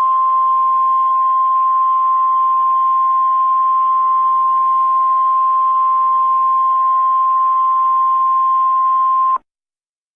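NOAA Weather Radio 1050 Hz warning alarm tone, the signal that a warning broadcast follows: a single steady high beep held unchanged over faint radio hiss. It cuts off abruptly about a second before the end.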